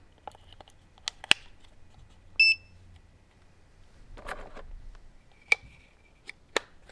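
Sharp plastic clicks as batteries are snapped into a Southwire 21550T clamp meter, then a short high electronic beep from the meter as it powers up, about two and a half seconds in. Handling rustle follows, then a few more sharp clicks as the battery cover is fitted back on.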